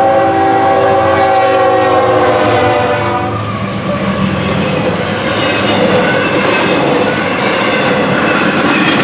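Norfolk Southern freight locomotive's air horn sounding one long blast, its pitch dropping slightly as the engine passes and cutting out about three and a half seconds in. Then the locomotive and intermodal container cars roll through the crossing with steady wheel clatter.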